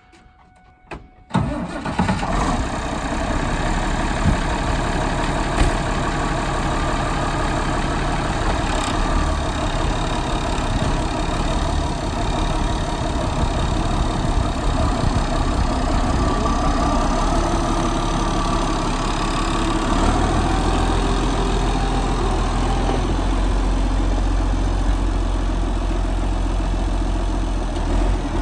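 International 1566 tractor's turbocharged six-cylinder diesel starting up about a second in, then running steadily at idle.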